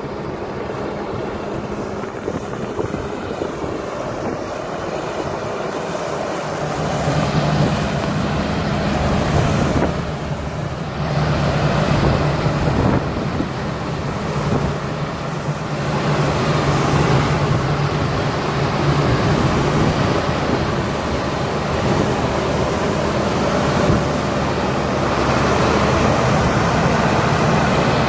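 John Deere 8770 articulated four-wheel-drive tractor's diesel engine running steadily as it drives, growing louder about seven seconds in and staying up. Wind buffets the microphone throughout.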